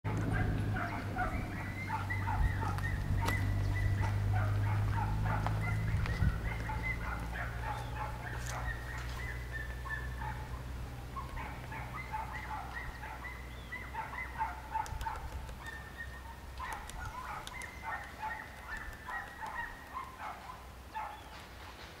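Hairy woodpecker chiselling into a tree trunk to excavate its nest hole, giving scattered sharp taps. Other birds call steadily in the background, over a low hum that is loudest at first and fades out after about ten seconds.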